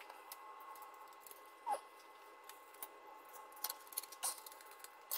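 Faint scattered clicks and light metal taps as a new oven bake heating element is handled and fitted into its sheet-metal housing, with one short squeak about a second and a half in.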